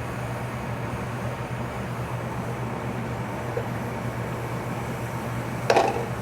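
Diced onions sizzling gently in melted butter in a sauce pot, sweating over medium-high heat, over the steady hum of a kitchen fan. A brief louder sound cuts in near the end.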